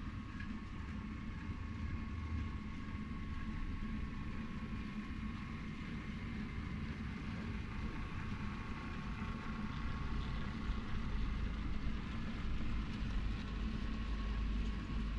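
Train running steadily: a low rumble with a constant high whine, getting a little louder in the last few seconds.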